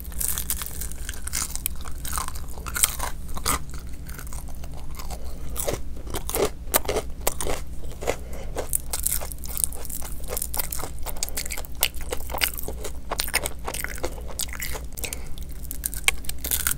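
Close-up crunching and chewing of crispy deep-fried mutton fat pakoda: many sharp, irregular crunches as the batter is bitten and chewed, with wet mouth sounds between.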